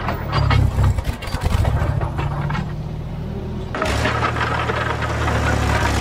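Vintage Bristol 25 crawler dozer's engine running under load while it pushes, with the revs surging in the first couple of seconds. About four seconds in it settles to a steady run.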